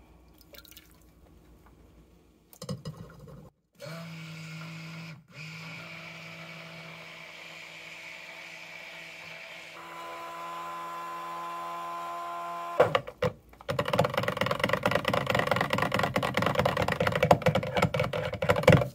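Stick blender mixing lye water into soap oils: a steady motor hum for several seconds, then a much louder, fast rattling clatter for the last five seconds or so as the blender is worked through the thickening batter.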